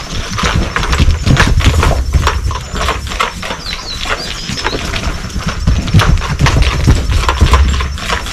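Hoofbeats of a young colt trotting and running in a circle, a quick, uneven stream of knocks. Two stretches of deep low rumble come and go under them.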